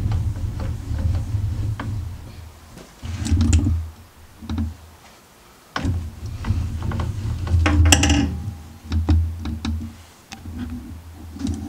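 Handling noise from a hand-held camera being moved: low uneven rumbling in stretches, with light clicks and knocks and a short rattle about eight seconds in.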